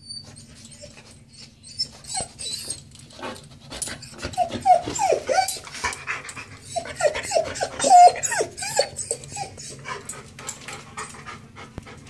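Goldendoodle whining at a closed door: short, high, falling whimpers in two runs, the loudest about eight seconds in, with many short clicks and breathing sounds between them.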